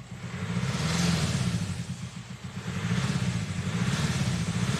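Volkswagen 1.9 TDI pumpe-düse diesel (AWX/AVF) revved up twice, the engine note rising, easing off and rising again, with the knocking noise the car came in for. The mechanic suspects an exhaust valve that is not opening, so exhaust gases blow back into the intake.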